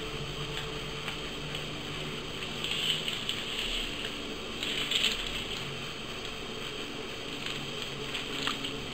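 Soft rustling and pattering as gelatin powder is shaken out of its paper packet into a glass bowl, in short bursts about three and five seconds in, over a faint steady hum.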